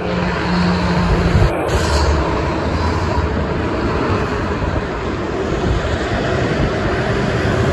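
Dense expressway traffic: a steady rush of tyre and engine noise from cars and tractor-trailers passing below, with a low rumble from the heavy trucks.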